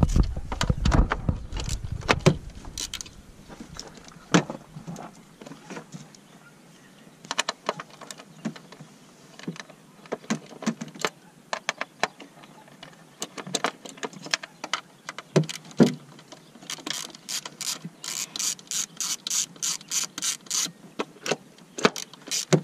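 A socket ratchet clicking as it loosens the bolts holding the ignition coil pack on a 2004 Dodge Neon's 2.0 L engine. Scattered clicks at first, then a steady run of about three or four clicks a second over the last few seconds.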